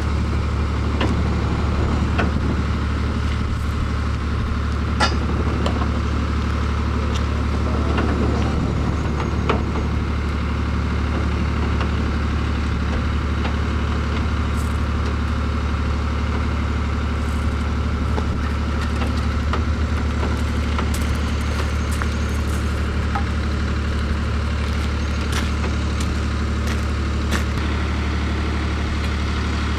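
Heavy diesel engine idling steadily, a deep unbroken hum, with a few short light knocks now and then.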